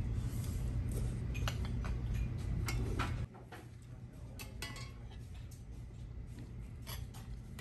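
Cutlery and dishes clinking: many separate light taps and clinks of utensils against plates and bowls during a meal, over a low steady hum that drops away suddenly about three seconds in.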